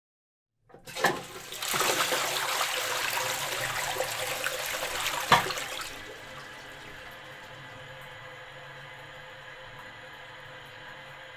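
Toilet being flushed: a click of the handle, then a loud rush of water lasting about four seconds with a sharp knock near its end. After that a quieter steady hiss of water runs on.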